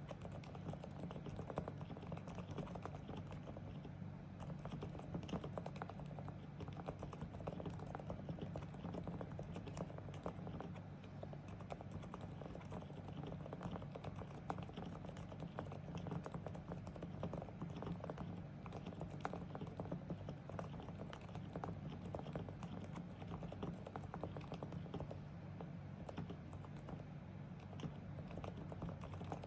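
Continuous typing on a Realforce PFU keyboard with Topre electrostatic capacitive switches, fitted with DES sliders and lubed: a fast, steady run of soft keystrokes.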